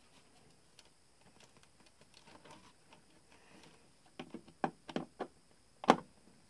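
A screwdriver clicking and scraping against the screws of a screw terminal strip as wires are fastened: faint ticks at first, then a quick run of small clicks about four seconds in and one sharper click near the end.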